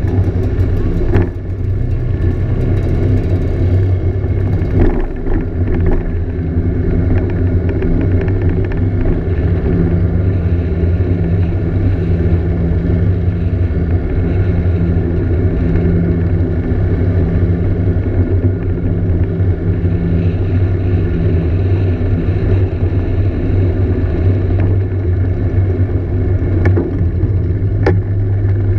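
Scooter engine running steadily at an even cruising speed, heard from on board the moving scooter, with a low, constant hum. A few brief knocks come near the start and near the end.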